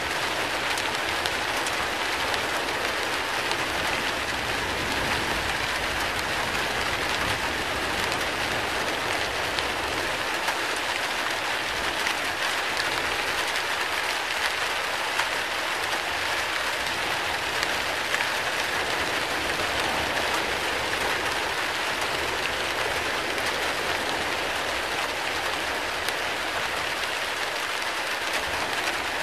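Steady hiss of water, even and unbroken, with faint scattered ticks through it.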